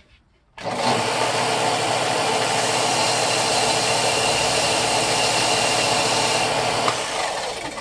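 Belt sander running steadily as a ring core is roughed up on the moving belt so that CA glue will grip it better. It starts abruptly less than a second in and runs down near the end.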